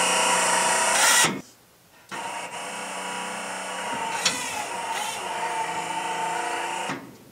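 Meyer E-47 snow plow's electric-hydraulic pump motor running with a steady whine to angle the blade. It stops about a second in, starts again about two seconds in, and runs until near the end.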